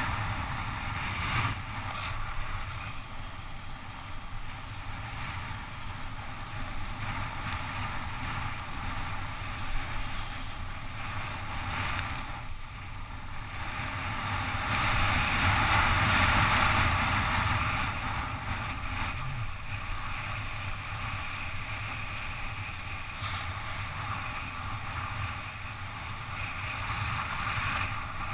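Steady rush of wind over a helmet-mounted GoPro's microphone, with the hiss of bicycle tyres on wet asphalt during a fast downhill ride. The rush swells louder about halfway through, then settles.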